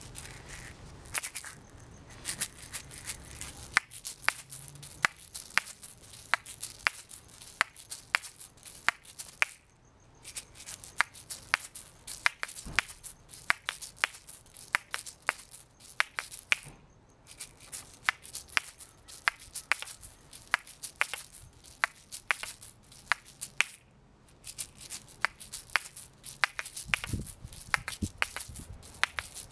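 Asalato being flipped around the fingers: the two shaker balls on their cord knock together in sharp clicks at a quick, uneven rhythm, over the rattle of the filling inside the shells. The playing stops briefly about ten, seventeen and twenty-four seconds in.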